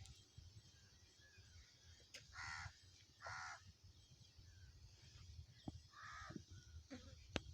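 A crow cawing three times: two harsh caws close together, then a third a few seconds later, over a faint low rumble.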